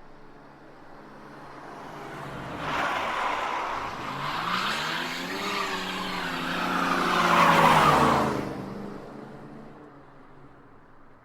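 Car tyres skidding and squealing over a running engine whose pitch rises and falls. It swells about two and a half seconds in, is loudest near the end, fades, and cuts off suddenly.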